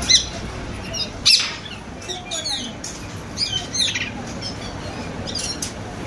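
Rose-ringed parakeets squawking: sharp, shrill calls, the loudest right at the start and about a second in, followed by shorter calls every second or so.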